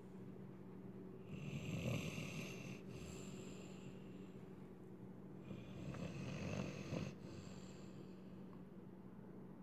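Young XXL bully pit bull snoring in its sleep: two drawn-out snores, about four seconds apart.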